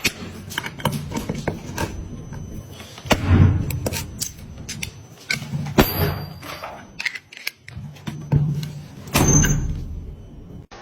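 A machine working with many clicks and knocks, and a low hum that comes and goes in short bursts.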